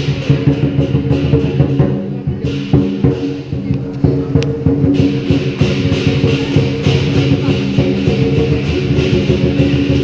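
Music with sustained pitched notes over a quick run of beats.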